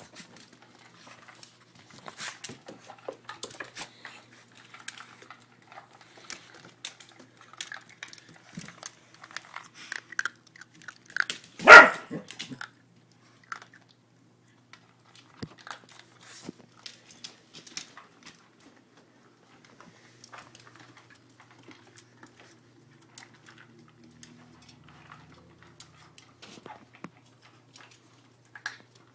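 Small dogs eating: scattered crunching and clicks of chewing, with one loud short bark about twelve seconds in.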